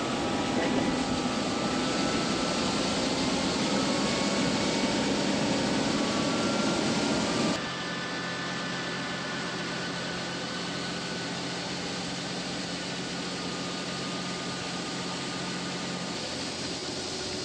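Tractor and PTO-driven grain bagger running steadily under load. About seven and a half seconds in, the sound switches abruptly to a quieter, steady engine hum.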